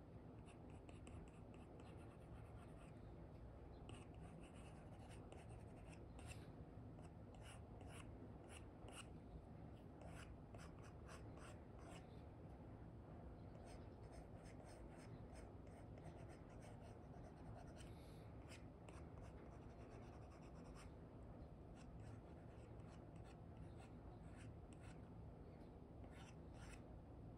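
Faint scratching and tapping of an Apple Pencil 2 with an Elecom nib on an iPad's paper-like screen protector, a run of short, irregular pen strokes with brief pauses. A low steady hum runs underneath.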